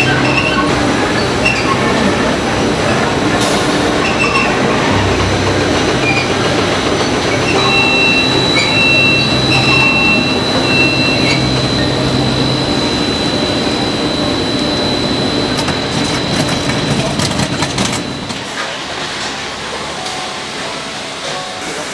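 Steady, loud din of towel-mill textile machinery running, with a thin high whine held for several seconds in the middle. The noise drops noticeably near the end.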